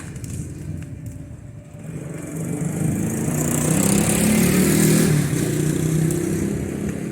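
A motor vehicle's engine passing by, growing louder from about two seconds in, loudest a little past the middle, then fading away.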